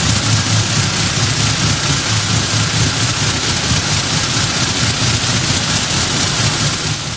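Vibratory finishing bowl (deburring tumbler) shaking a load of small triangular abrasive media: a steady, dense rattling hiss over a low hum.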